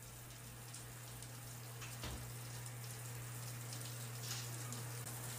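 Shower running behind a curtain: a steady spray of water hissing, with a steady low hum underneath.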